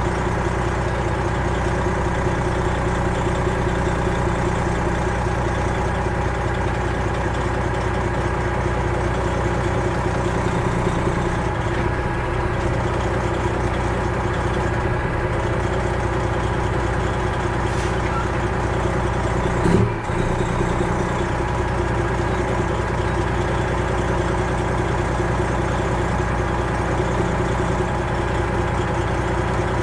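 Semi truck's Detroit Diesel 12.7 engine running steadily at an even pitch, with a single low thump about twenty seconds in.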